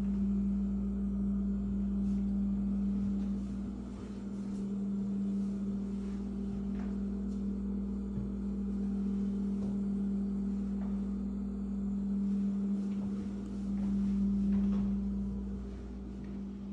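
Steady low mechanical hum with a deeper rumble beneath it, briefly louder near the end, with a few faint taps.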